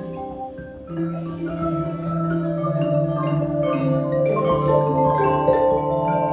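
Background music, a melody of many held notes, growing louder about a second in.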